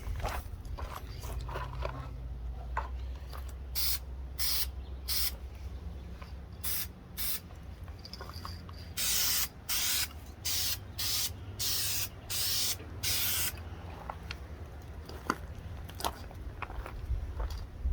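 Aerosol spray paint can sprayed in a series of short hissing bursts while a coat of black paint goes onto a model truck body shell. The bursts come fastest in the middle.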